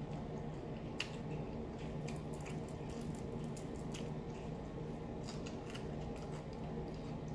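Crispy fried black bass being pulled apart with the fingers and bitten: scattered sharp crackles and crunches of the fried skin and fins, over a steady low hum.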